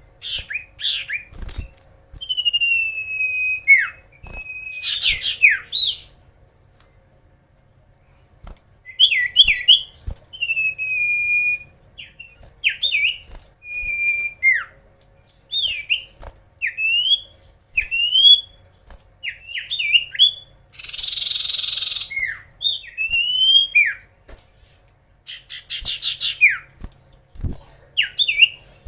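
Common iora in full song: phrases of clear whistled notes, some drawn-out falling slurs and many short rising and falling whistles, with short pauses between phrases and one brief harsh rasping note about two-thirds of the way through.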